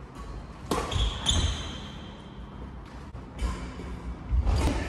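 Badminton rally on a wooden sports hall floor: a few sharp racket hits on the shuttlecock and footfalls, with shoes squeaking on the court, echoing in the hall.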